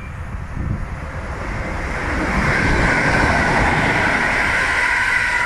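Class 321 electric multiple unit running past close by. A rushing of wheels on rail and moving air builds from about two seconds in, with a steady high whine over it.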